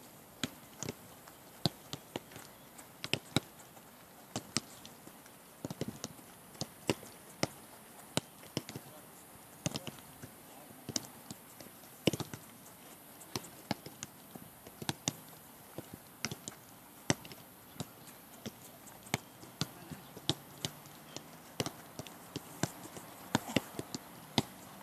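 Footballs being kicked back and forth in a passing drill: a string of sharp, irregular thuds, roughly two a second.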